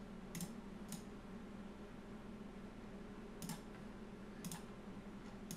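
Computer mouse clicking: five faint clicks, two near the start and three about a second apart in the second half, over a low steady hum.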